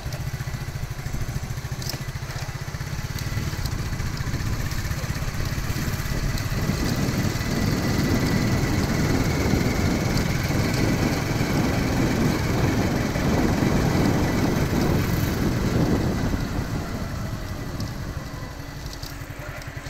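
Motorcycle engine running steadily as it rides along. The sound grows louder and noisier from about seven seconds in, then eases off near the end.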